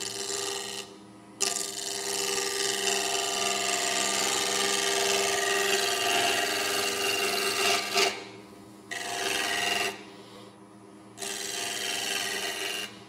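Gouge cutting a spinning cedar of Lebanon blank on a wood lathe, its bevel rubbing: one long cut of about six seconds, then two shorter cuts, with the lathe running more quietly in the gaps.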